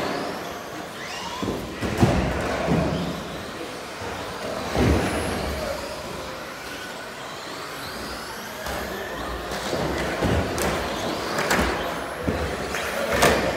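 Radio-controlled short-course trucks racing, their motors whining up and down in pitch as they accelerate and brake. Several sharp knocks from the trucks landing jumps and bumping the track's barriers.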